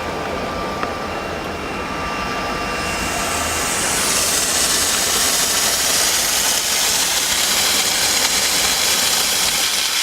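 Diesel-type mobile steam car-washing machine running with a steady low hum, then about three seconds in the steam gun starts releasing steam with a loud hiss that builds for a second and holds steady.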